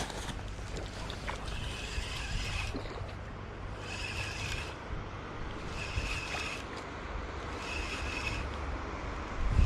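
Shimano Sahara 5000 spinning reel cranked in short spells about every two seconds, each a brief whirr with a steady high whine: a stepped jig retrieve. Wind rumbles on the microphone underneath.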